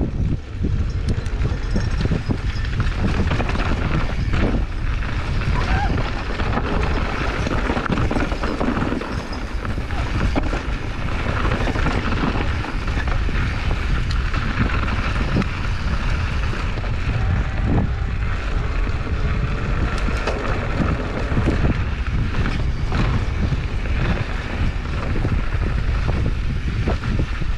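Wind rushing over an action camera's microphone while riding a mountain bike down a dirt singletrack, with the tires rumbling over the trail and scattered knocks and rattles from the bike over bumps.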